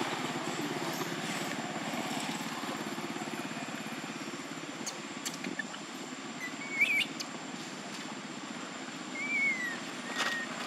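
A steady low engine drone with a fine rapid pulse, joined near the end by three short high-pitched squeaks, the first, rising one the loudest.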